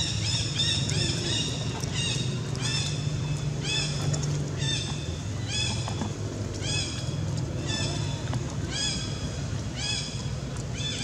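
Baby long-tailed macaque crying: high-pitched calls repeated about once every 0.7 seconds, each rising and then falling in pitch, over a steady low hum.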